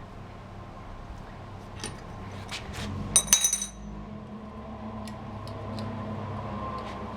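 Metal tools and parts clinking and tapping during hand dismantling, with a few light clicks and then a loud burst of bright ringing metal clinks a little past three seconds in, over a low steady hum.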